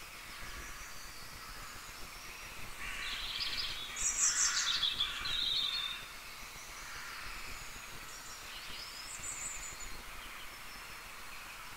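Bird chirping in the background: a run of high, quick calls about three to six seconds in and a short one near nine seconds, over faint steady room hiss.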